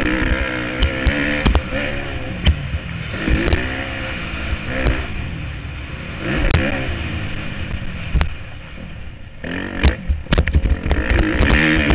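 Motocross bike engine revving up and falling back again and again as it is ridden hard around a dirt track, heard from the rider's helmet, with many sharp knocks. The engine eases off for a moment about eight seconds in, then picks up again.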